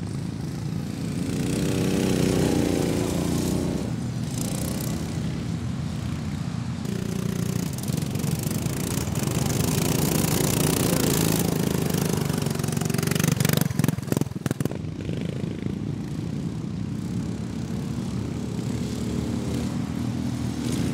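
Engines of racing ride-on lawn mowers running and revving as they pass, pitch rising and falling. A cluster of sharp knocks about two-thirds of the way through.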